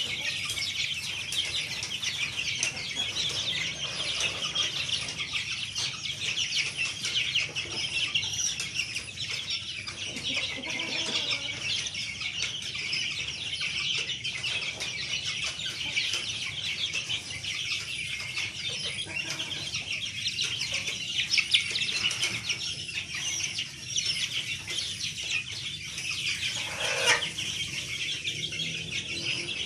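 A flock of month-old chicks peeping together, a dense, busy chorus of high peeps. Near the end one louder call drops in pitch.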